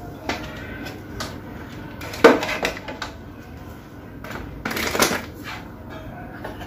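Scattered clicks and knocks of small hard objects being handled and set down. The loudest comes about two seconds in, and a short cluster follows a few seconds later.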